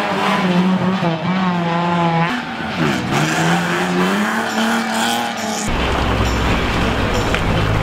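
Rally car engines. One revs up and down as it pulls away, with a drop and a climb in pitch about three seconds in. After a sudden change near six seconds, a deeper engine runs steadily at low revs.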